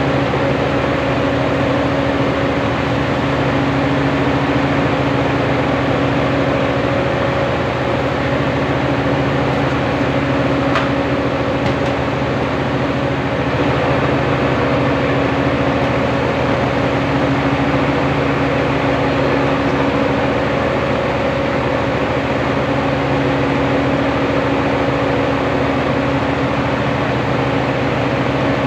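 Small rice-milling machine running steadily: an even, loud mechanical drone with a constant hum underneath.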